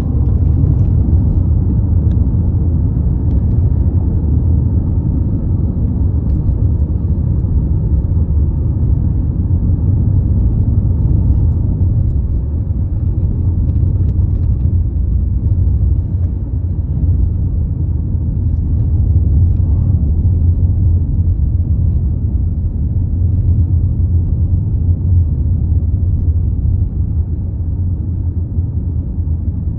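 Steady low rumble with a few faint, irregular clicks from under the steering wheel of a BMW F10 520d. The clicking is relay-like, repeating as if something is opening and closing, and its cause is unknown to the owner.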